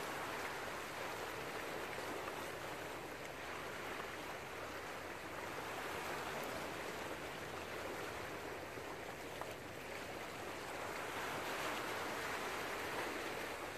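Small sea waves washing over shoreline rocks, a steady rushing that swells and eases every few seconds.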